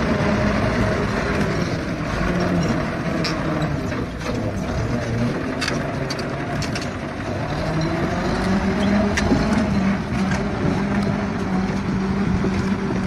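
A machine's engine running under load, its pitch rising and falling, with scattered knocks and clanks, heaviest a few seconds in.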